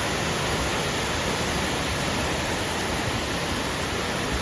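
Waterfall, the water falling in a steady, even rush.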